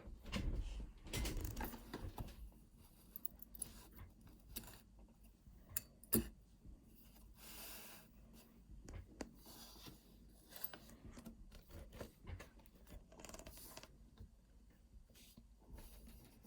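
Small metal parts of a disassembled Opnus TEX lock cylinder being handled: scattered light clicks, taps and scraping, with one sharp click about six seconds in.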